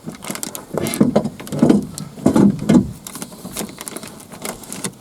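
Clicks, clunks and scraping of a loosened car-door power-window regulator and motor assembly being worked inside the door, with a cluster of heavier knocks about one to three seconds in.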